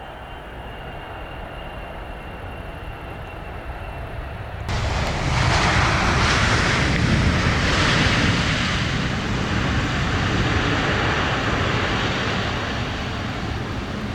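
Boeing 777-300ER's GE90 turbofan engines on landing approach: a steady jet noise with a faint high whine that slowly grows louder, then jumps suddenly to a much louder jet noise about five seconds in, easing slightly toward the end.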